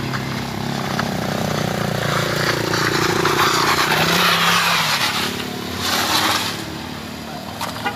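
A car climbing a steep gravel road and passing close by: the engine pulls under load and the tyres crunch over loose gravel. It grows loudest about three to four seconds in, swells once more around six seconds, then fades.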